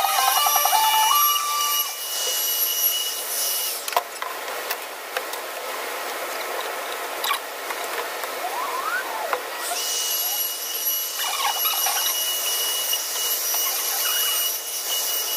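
Handheld wood router running with a steady high whine as it rounds over the edge of a plywood sheet. It stops after about four seconds, a few clicks and knocks follow, and it runs again from about ten seconds in.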